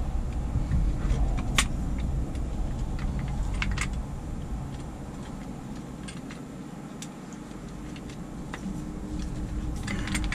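Metal laptop-mount arm and brackets being handled and repositioned: scattered light clicks and clinks of the joints and parts, over a low rumble that fades in the middle and comes back near the end.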